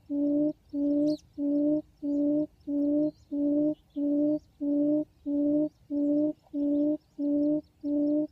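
Recorded quail lure call played from a phone speaker: one low hooting note repeated evenly about twice a second, used to draw wild quail to the trap.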